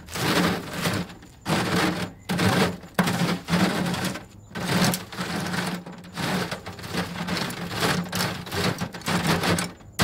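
A small three-tined hand cultivator scraping and breaking up compost clods over a half-inch welded hardware-cloth sifting screen, in repeated uneven strokes about once a second. A low steady hum runs underneath.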